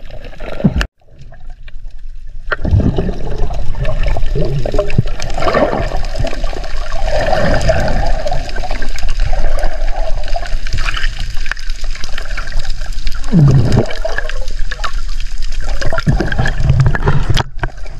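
Water sloshing and gurgling heard through a camera held underwater, with a finned diver swimming nearby. The sound drops almost to nothing about a second in, then the churning water noise comes back and runs on.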